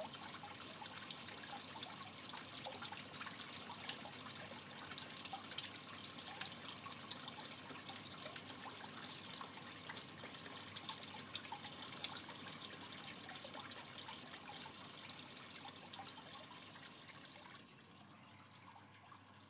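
Aquarium water trickling steadily, with fine crackles, fading out near the end.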